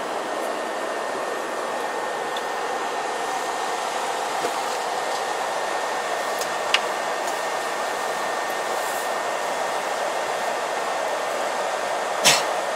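Steady rushing air from a coach's cabin ventilation, heard inside the bus, with a faint high steady whine. A sharp click comes about seven seconds in, and a short knock near the end.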